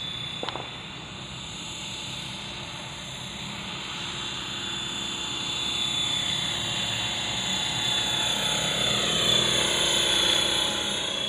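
Radio-controlled MD500 scale model helicopter in flight, its engine and rotors running with a steady high whine. The whine grows louder and its pitch sweeps as the helicopter comes close, loudest about nine to ten seconds in.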